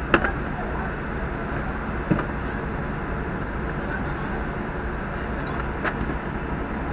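Fire engine's diesel running steadily, a low drone under general road-scene noise, with three sharp clicks or knocks about two seconds apart and one near the end.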